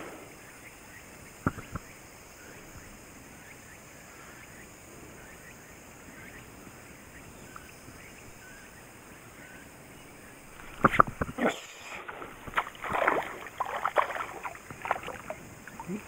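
Quiet lake background, then about eleven seconds in a run of sharp knocks and splashing: a small hooked bass thrashing at the water's surface as it is reeled in beside the boat.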